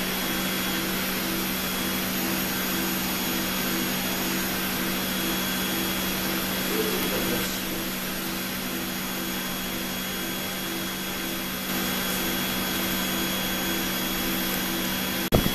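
Steady hum and airy hiss of a cone calorimeter's gas-sampling and exhaust equipment running, with a low tone pulsing two or three times a second. A sharp knock near the end.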